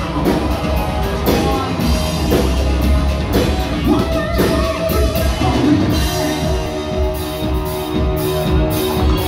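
Live rock band playing loudly, with drums and guitar and a singer.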